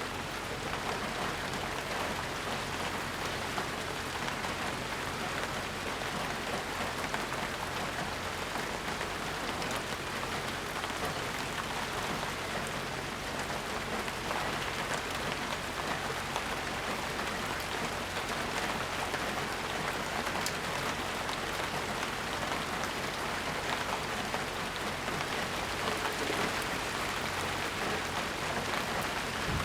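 Steady rain falling and pattering on surfaces, an even hiss with fine scattered drop ticks and no thunder.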